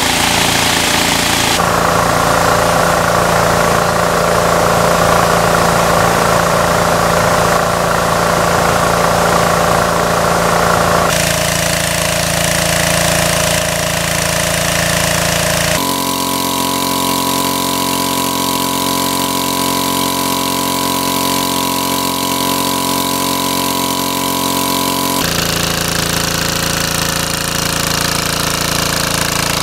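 Small engine-driven water pump running steadily at full throttle, with the hiss of its discharge spraying water; the tone changes abruptly a few times.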